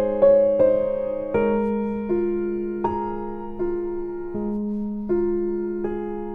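Background piano music: a slow, gentle melody of single notes over a held low note.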